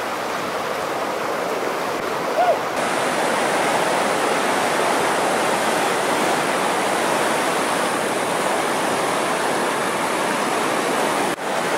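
Whitewater rapids of the Salmon River rushing steadily. About two and a half seconds in comes a single short, high chirp.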